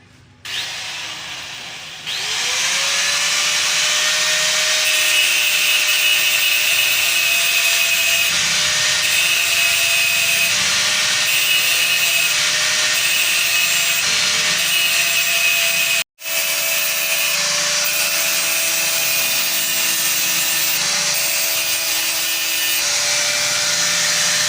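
Handheld electric power tool running at speed under load, a grinding, rubbing noise over a steady motor whine. The motor spins up about two seconds in, cuts out for a moment about two-thirds through, and winds down at the end.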